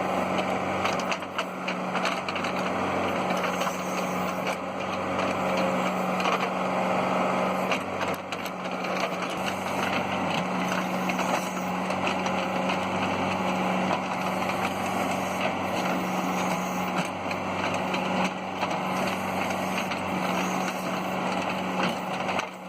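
Kubota tractor's diesel engine running steadily, with scattered knocks and rattles over it.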